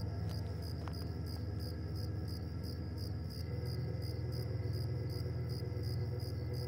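Crickets chirping in a steady rhythm, about three chirps a second, over a low, droning music score.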